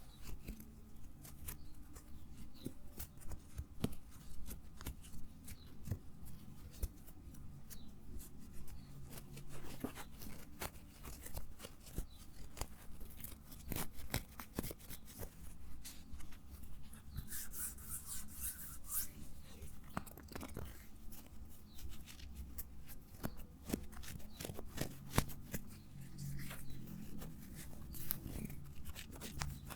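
Close-miked ASMR trigger sounds: irregular clicks, crackles and scratches throughout, with a brief hissy rustle just past the middle.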